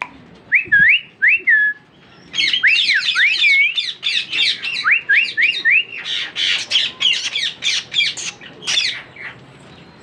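Indian ringneck parakeets calling: a few short rising chirps, then from about two seconds in a fast run of harsh, repeated screeches that stops about a second before the end.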